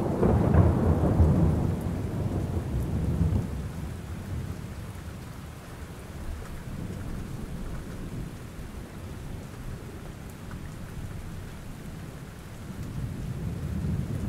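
Thunderstorm ambience: steady rain with a low rolling thunder rumble, loudest in the first few seconds and then fading, and a second, softer rumble swelling near the end.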